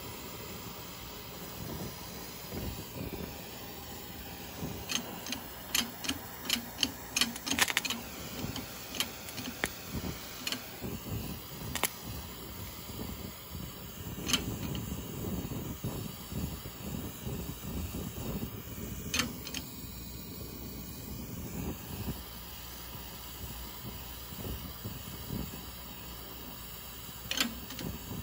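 Handheld gas torch burning with a steady hiss as it heats a warped oil pump cover clamped flat to be straightened. Sharp clicks and ticks come in a cluster from about five to twelve seconds in, with a few more later.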